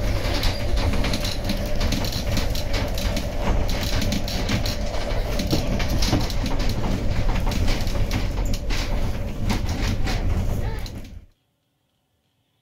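Snaefell Mountain Railway electric tram running along its track, heard from on board: wheels rattling over the rails with many rapid clicks and a faint steady whine. It cuts off abruptly about eleven seconds in, leaving near silence.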